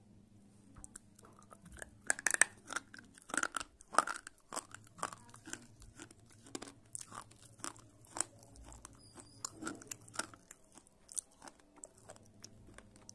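Slate pencil being bitten and chewed: a run of sharp, dry crunches, loudest about two to four seconds in, then smaller chewing crunches that go on steadily.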